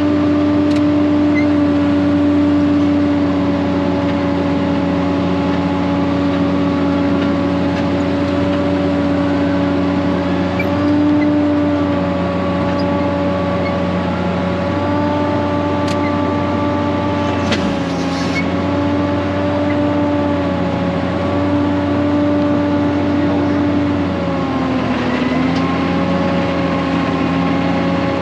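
Tractor engine running steadily, heard from inside the cab, while it drives a feed mixer wagon unloading feed. The pitch dips briefly near the end.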